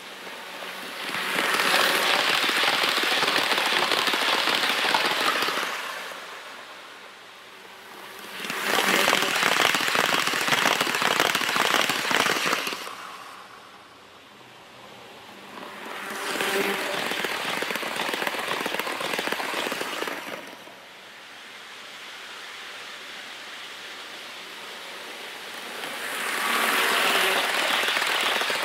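HO-scale model trains clattering over sectional track, a crackly rattle of small wheels and couplings. It swells and fades four times as trains pass close by.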